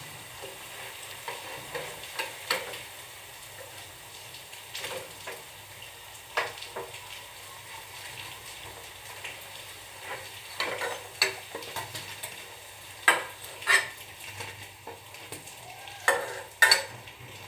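Onion pakodas sizzling in hot frying oil, a steady hiss, with a metal utensil clinking and scraping against the pan at irregular moments as the fried pakodas are stirred and lifted out.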